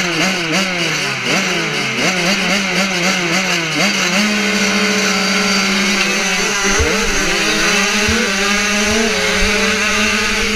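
A field of 85cc two-stroke motocross bikes at the starting gate: riders blip their throttles, the engine notes rising and falling over one another. About four seconds in, the revs are held steady and high for the gate drop, with a few low knocks in the middle, and then the bikes pull away down the start straight.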